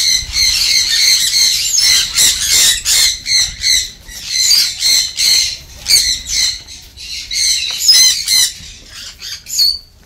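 Aviary birds squawking and chirping, a dense chorus of short, high calls overlapping one another, thinning briefly near the end.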